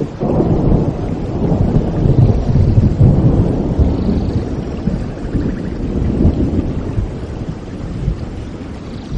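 A long roll of thunder over steady rain. It swells just after the start, is loudest a couple of seconds in, and slowly fades away.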